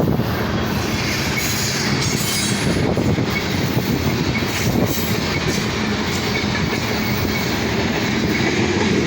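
Loaded BNSF coal train rolling past close by: a steady heavy rumble of wheels on rail, with scattered clicks and a faint wheel squeal.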